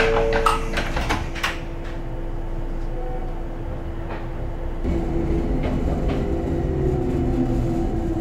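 Sliding doors of a Joshin Electric Railway 700 series EMU (ex-JR East 107 series) banging shut, with several knocks in the first second and a half. The standing train's steady hum follows. About five seconds in, a louder low rumble joins the hum.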